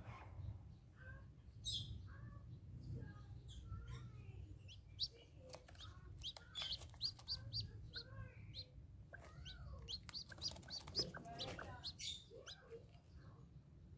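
Newly hatched chick peeping in many short, high chirps, thickest through the middle, with softer lower calls from the broody hen sitting over it.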